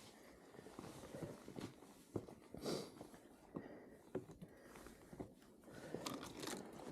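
Snow crunching in irregular bursts on a fat-bike trail, with scattered sharp clicks and a louder crunching swell about three seconds in.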